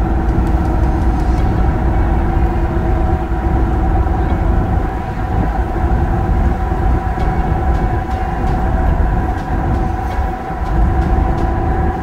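Steady road noise from inside a moving Hummer: a deep rumble with a constant hum of several tones over it.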